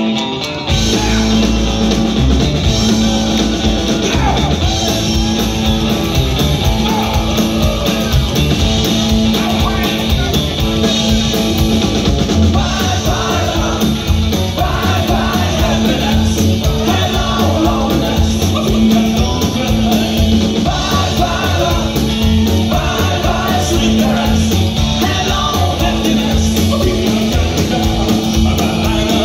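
Live rockabilly band playing: electric guitar, slapped upright bass and drums keeping a steady, driving beat, with a man singing lead into a microphone.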